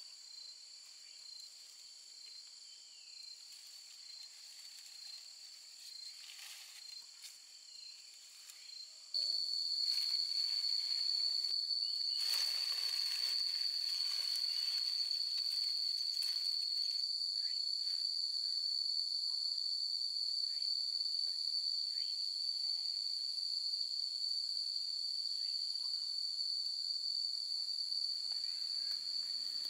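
Steady, high-pitched chirring chorus of insects, which becomes markedly louder about a third of the way in and then holds steady. Faint rustling is heard briefly in the middle.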